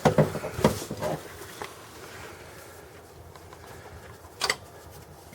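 Scattered clicks and clanks of hand tools being handled while a wrench is fetched: a quick cluster in the first second, then quiet, then two sharp knocks about four and a half seconds in.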